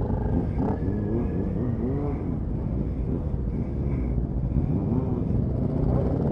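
Motorcycle engines heard from on board a moving bike, their pitch rising and falling with the throttle over a steady low rumble.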